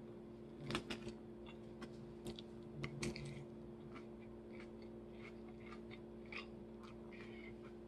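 Close-miked chewing of a leafy salad: irregular soft crunches and wet mouth clicks, a little louder about a second in and again around three seconds in, over a steady low hum.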